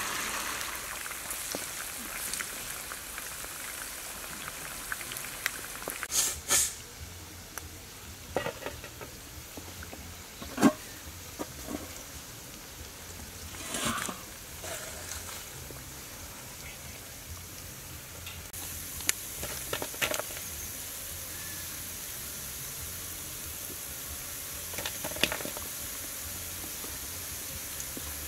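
Eel pieces deep-frying in hot oil in a wok: a steady sizzle, with a few short knocks as a wooden spoon stirs them.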